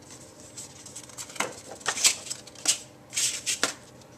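Stiff patterned cardstock being flipped over and folded along its score lines, then pressed down by hand: a string of short crackling paper rustles and scrapes, bunched in the second half.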